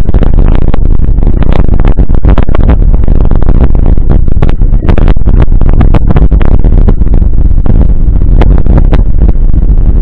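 Very loud wind rumble on the microphone and a constant rattle of jolts and knocks from a camera on a mountain bike riding over a rough, stony dirt road.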